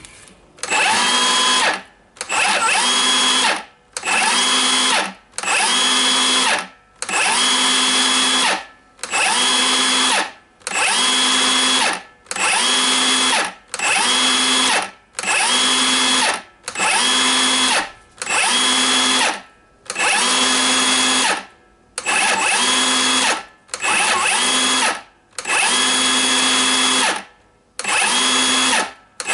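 Milwaukee M18 brushless circular saw, freshly fitted with a new controller, trigger-tested in about twenty short bursts. Each time it whines up to speed, runs for about a second, then winds down quickly. It now starts every time.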